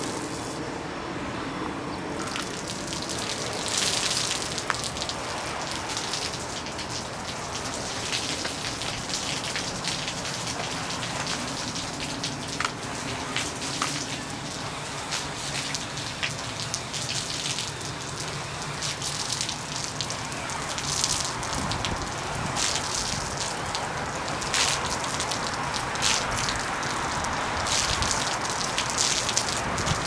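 Water spraying from a hose-fed Unger brush head on an extension pole onto a fabric awning, a steady hiss with frequent short splashes and patters as the water rinses the cleaner off the awning.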